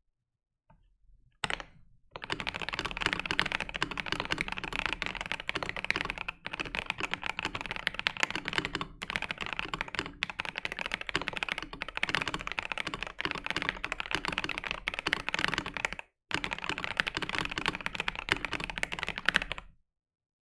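Fast, continuous typing on a RAMA Kara mechanical keyboard with factory-lubed NovelKeys Silk Black linear switches: a dense stream of key presses, fairly loud and more clacky than thocky. A lone keystroke comes about a second and a half in, the steady typing starts half a second later, with short breaks around six seconds and sixteen seconds, and it stops shortly before the end.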